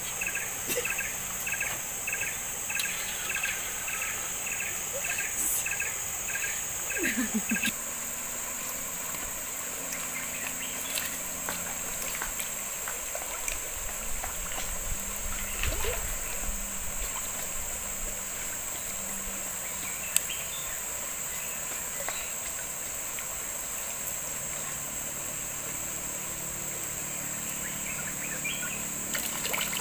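Steady high-pitched drone of forest insects. A repeated chirp about twice a second joins it and stops about seven seconds in.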